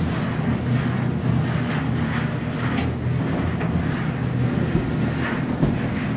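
Large gas-heated rotary drum tea-processing machine running with a steady low drone, during a cleaning run with green tea leaves being tumbled in it. A few light knocks and one sharp click near the middle of the drone.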